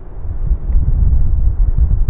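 Wind buffeting a microphone: a loud, uneven low rumble.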